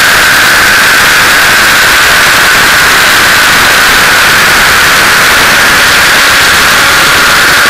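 Align T-Rex 600 radio-controlled helicopter in flight, heard from a camera on its landing skid: a loud, steady rushing noise with a steady high whine running through it.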